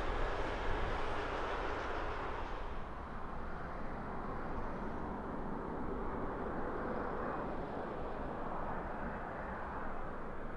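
Jet airliner engine noise heard from a distance: a steady rushing sound whose hiss fades about three seconds in. It gives way to the steady drone of a Boeing 787-9 Dreamliner's engines on final approach.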